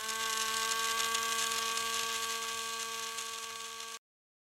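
Small battery-driven electric motor and gearbox of a model pedal boat running, working the wooden pedalling figure: a steady whine with a whirring hiss, cutting off suddenly near the end.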